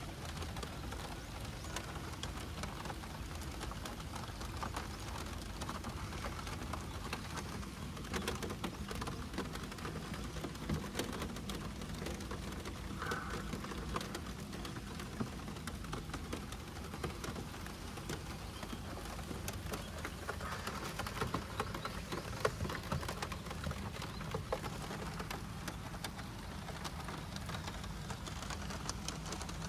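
Steady rain falling, with many small drop ticks over a constant low hum.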